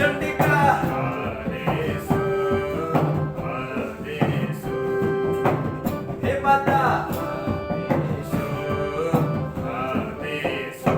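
Devotional bhajan music: a keyboard melody over a steady dholak drum rhythm.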